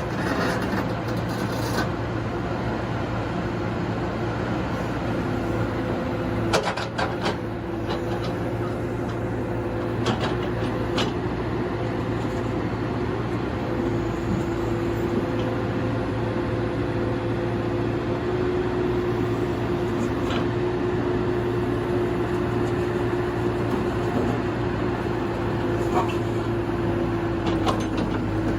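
CAT 313DCR hydraulic excavator running steadily, with a steady whine over the engine and a few short clacks from the machine as it works.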